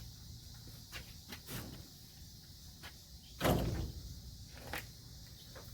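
A few light clicks and knocks from fold-out camper parts being handled and fitted, then a heavy thud about three and a half seconds in and another right at the end, like a hinged section or door coming to rest.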